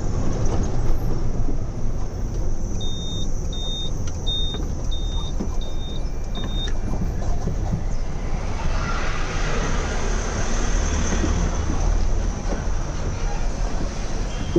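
Truck cab interior: the engine and road noise run steadily while the turn-indicator buzzer beeps six times, evenly spaced about a beep and a half a second, from about three seconds in to about seven seconds. From about eight seconds a hissing rush rises over the engine noise.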